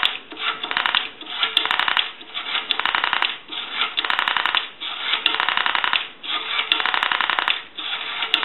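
Rotary dial of a Northern Electric three-slot payphone pulsing out digits: repeated bursts of rapid, evenly spaced clicks, one burst per digit, with short pauses between them as the dial is wound for the next number.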